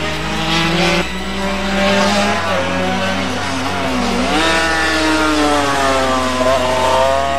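Two-stroke Honda RS250 race motorcycles running at racing speed. The engine note rises and falls, dropping around four seconds in and then climbing again as the bikes accelerate.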